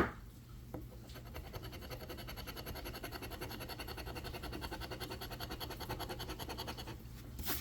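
A scratch-off lottery ticket being scratched in quick, even back-and-forth strokes, several a second, starting about a second in and stopping near the end, followed by a brief louder rustle.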